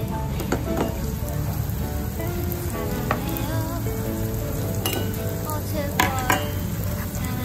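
Chopped red onion, garlic and cinnamon sizzling in oil in an aluminium mess tin, with a few sharp taps in the second half.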